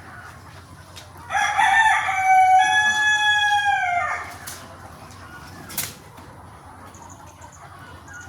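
A rooster crowing once, one long call lasting about three seconds, over faint clucking from the flock of chickens.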